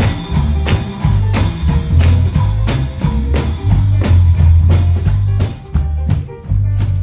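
A live gospel band plays without singing: drum kit, tambourine, bass and guitar keep a steady, upbeat beat of about two strikes a second.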